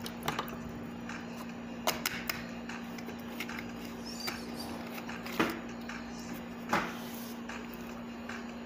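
Handling of a large plastic cooking-oil bottle: a few scattered knocks and clunks as it is set down and stowed in a kitchen cupboard, the two loudest past the middle, over a steady low hum.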